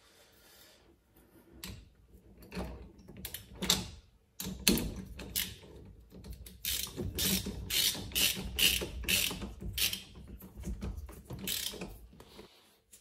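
Masking tape being peeled off horn wire connectors by hand: a run of short, irregular crackling rips that stops shortly before the end.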